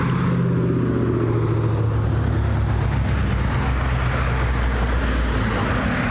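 Motor vehicle traffic passing close by on a busy road: a steady low engine drone with tyre noise. One vehicle's engine note falls in pitch as it goes past during the first two seconds.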